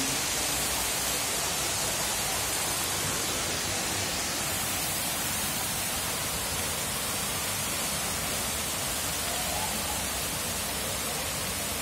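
Steady monsoon rain falling, an even hiss.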